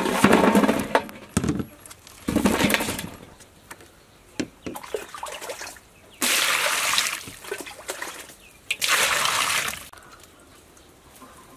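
Water splashing and pouring in a large metal basin as vegetables are washed by hand: four separate surges of about a second each, with small knocks and drips between.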